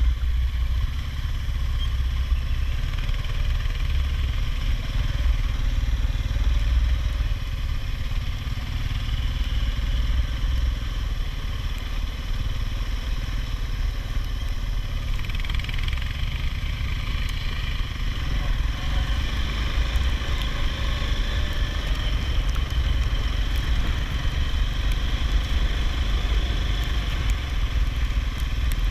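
ATV engine running steadily as the machine rides along, a continuous low rumble.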